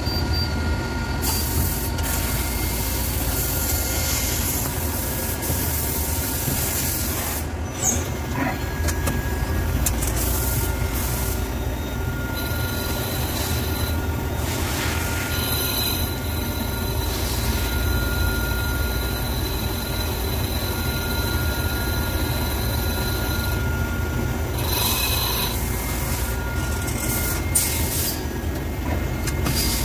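CNC lathe running, machining a gunmetal (bronze) casting: a steady machine drone with the scraping of the cutting tool on the metal, and several short stretches of high hiss.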